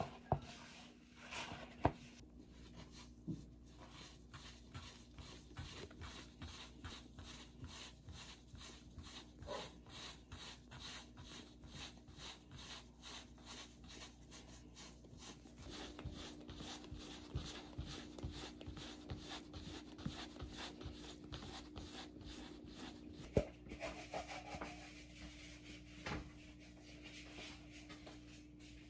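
Hand work in food preparation: quick, even rubbing or scraping strokes, about three to four a second, with a few sharper knocks.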